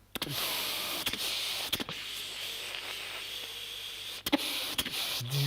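A vocal sound effect made with the mouth: a steady whirring hiss, like an electric motor, for about four seconds, cut off by a sharp click, with a second click shortly after.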